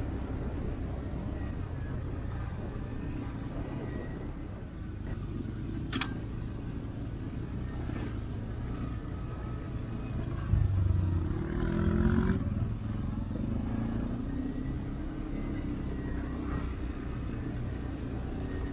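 CF-Moto 450 ATV engine running with a steady low rumble, getting louder and rising in pitch as it revs up about eleven seconds in.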